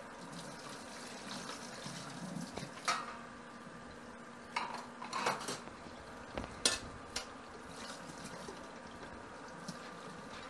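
Dishes being hand-washed in a stainless steel sink: a pot and a metal spoon clink against the sink and each other several times, the loudest clink about two-thirds of the way in, over water running from the faucet.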